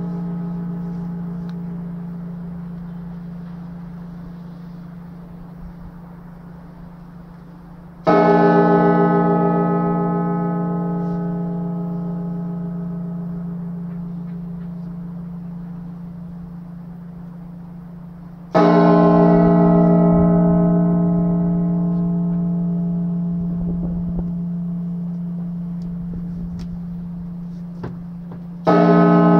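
Great bell of St Isaac's Cathedral tolling a slow memorial knell: single strokes about ten seconds apart, three of them, each ringing on with a deep hum that fades slowly until the next. It opens on the dying ring of an earlier stroke.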